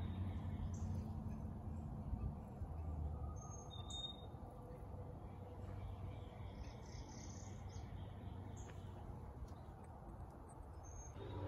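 Outdoor ambience: birds chirping now and then over a faint, steady low hum.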